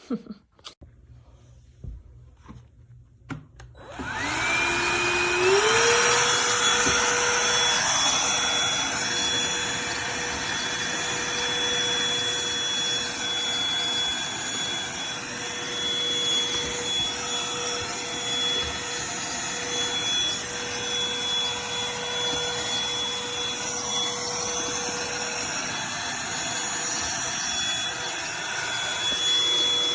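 Cordless handheld vacuum switched on about four seconds in after a few faint clicks, its motor whine rising in steps up to speed and then running steadily.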